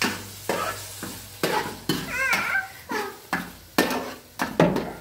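A utensil scraping and knocking in a pot, about two strokes a second at an uneven pace, with a brief high-pitched call about two seconds in.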